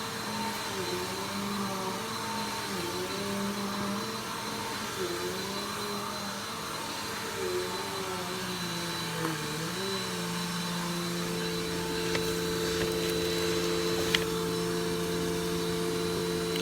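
Vacuum cleaner running, its motor pitch dipping briefly several times during the first ten seconds and then holding steady. There is a sharp click near the end.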